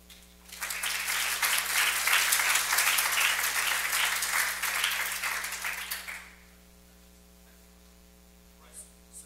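Audience applauding: many hands clapping, starting about half a second in and fading away after about six seconds.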